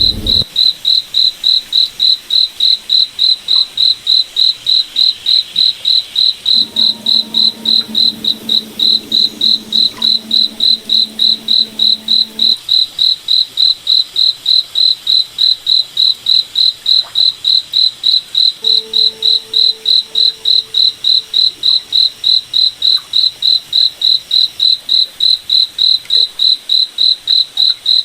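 A cricket chirping in a steady, even rhythm, about two to three high-pitched chirps a second. A faint low hum comes in twice underneath it.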